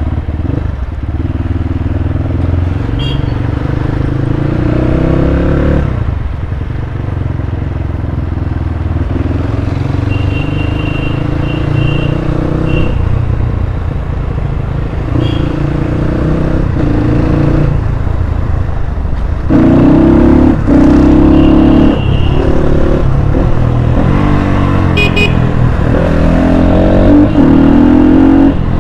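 Dirt bike engine heard from the rider's seat, its pitch rising and falling again and again with throttle and gear changes, and louder for the last several seconds. Short horn toots come several times.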